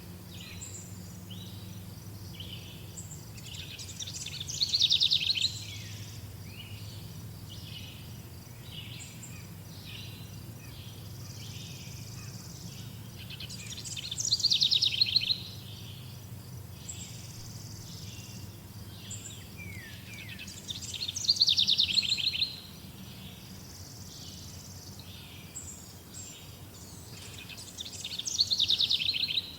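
Songbirds singing: one bird repeats a loud, fast trilling song four times, each phrase about a second and a half long, with softer chirps from other birds in between. A faint low steady rumble lies underneath.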